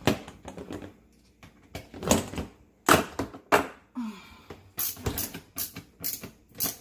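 A screw being driven by hand into a dishwasher's plastic part. There are irregular clicks and knocks, then from about two-thirds of the way in a regular series of clicks about two a second as the screwdriver is turned.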